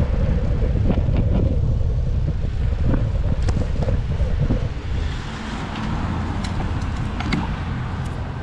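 Steady low road rumble heard from a moving bicycle, with a few light clicks and rattles; it eases a little about five seconds in.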